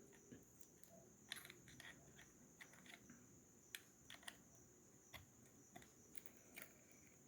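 Near silence with faint, scattered small clicks from handling the portable speaker's plastic as a USB flash drive is plugged in.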